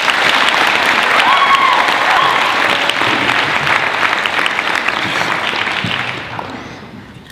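Audience applauding, the clapping fading away about six seconds in.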